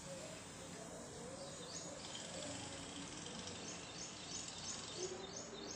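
Quiet background hiss with a bird chirping faintly: a quick, evenly spaced series of short high chirps, about three a second, through the second half. The condensed milk being poured makes no sound that can be picked out.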